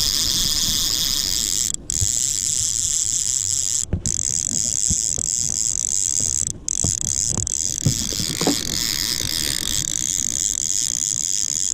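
Spinning or trolling reel being cranked hard while a hooked fish is reeled in, a steady high-pitched gear whir and ratcheting, with a few low knocks against the boat.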